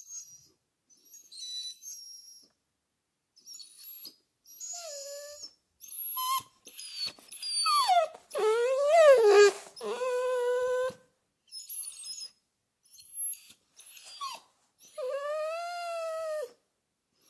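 A dog whimpering and whining: a string of short, quiet, high whimpers, then louder whines that glide up and down in pitch around the middle, and one long whine near the end that rises and falls.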